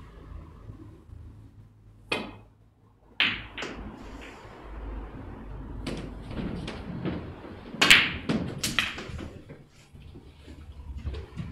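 Sharp clicks of snooker balls as a shot is played: the cue tip strikes the cue ball and the cue ball hits a red, which is potted. These clicks, about two thirds of the way in, are the loudest sounds, with a few single knocks earlier, over a low steady hum.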